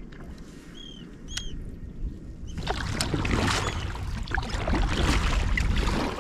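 Double-bladed kayak paddle strokes splashing through sea water, starting about two and a half seconds in. Before that, two short bird chirps about a second in.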